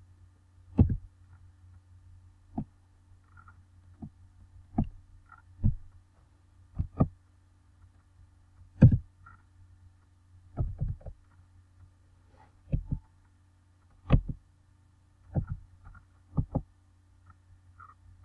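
Computer keys pressed one at a time: short, separate knocks at an irregular pace of about one a second, some in quick pairs, over a steady low hum.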